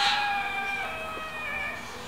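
A rooster crowing, one long drawn-out call that steps down in pitch a little before halfway and fades out near the end.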